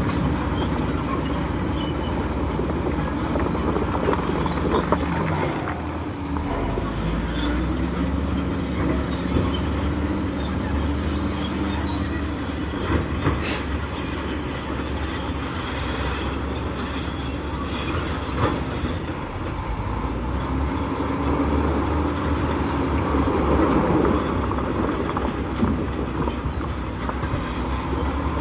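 Heavy earthmoving machine, most likely a bulldozer, with its diesel engine running steadily and a few sharp knocks about halfway through.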